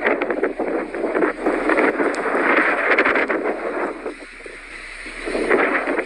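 Blizzard wind blowing in strong gusts that swell and ease, with scattered sharp ticks through it; it dies down about four seconds in and gusts up again near the end.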